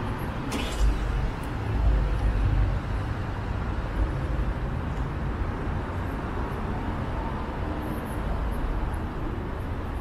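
City street traffic noise: a steady rumble of cars and buses going by, with a short sharp click about half a second in.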